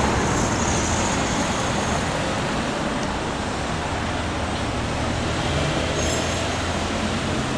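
Street traffic: a steady wash of road noise from passing cars with a low engine hum, easing off slightly.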